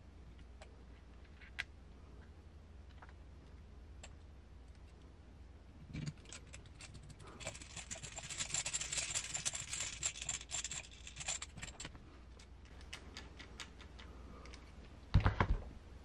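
Small RC car parts being handled on a workbench: a few light clicks, then several seconds of dense scratchy ticking as a set screw in the driveshaft end is turned with a hand hex driver. A dull thump comes near the end.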